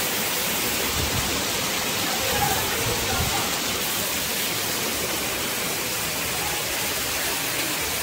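A steady, even rushing noise, like heavy rain or running water, with no clear rhythm or separate impacts.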